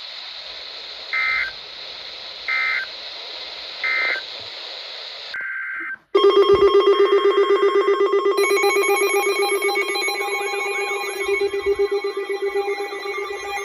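Emergency Alert System end-of-message data tones: three short buzzy bursts about 1.4 s apart, then a longer burst that cuts off. After a brief dropout about 6 s in, a loud, rapidly pulsing electronic alert tone begins, with several higher tones layered over it.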